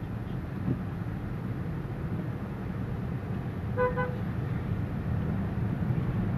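Steady low rumble of slow road traffic heard from inside a car, with a car horn giving two short toots about four seconds in.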